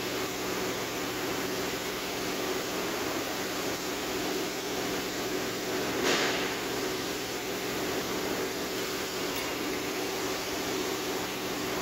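Steady mechanical hum and hiss, with one sharp knock about six seconds in.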